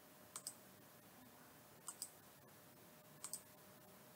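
Computer mouse button clicked three times, about a second and a half apart, each click a quick press-and-release pair.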